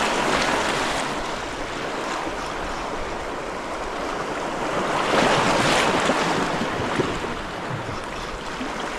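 Sea waves washing against rocks, a rushing noise that swells twice, near the start and again about five seconds in.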